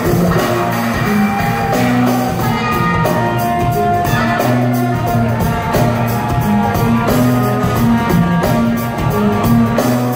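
Funk band playing loud live music: a repeating bass line, guitar and drums.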